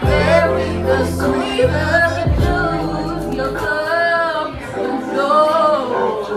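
Singing over musical accompaniment with a low sustained bass line; the bass drops out a little past halfway while the voice carries on.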